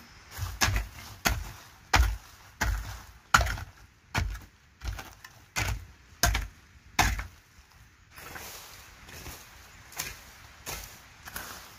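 A hand hoe chopping into earth in steady strokes, about ten heavy thuds roughly two-thirds of a second apart. About eight seconds in, these give way to softer scraping strokes as the hoe is dragged through dry leaf litter and brush.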